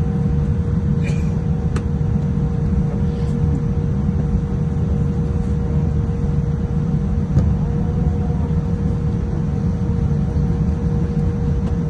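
Airliner cabin noise while taxiing on the ground: a steady low rumble of the engines and airframe with a constant hum over it. A couple of faint clicks come about a second and two seconds in.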